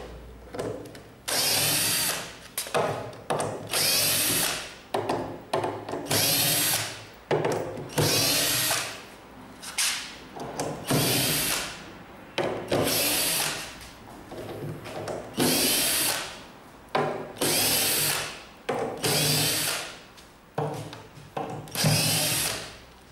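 Cordless drill-driver backing screws out of a plywood crate lid, in about ten short runs of about a second each, with pauses between as it moves from screw to screw.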